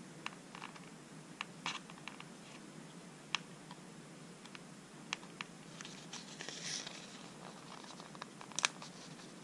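Faint scattered clicks and ticks of fingernails and metal tweezers picking at the edge of a paper planner sticker to lift it from its sheet, with a short rustle of the sticker sheet about six to seven seconds in.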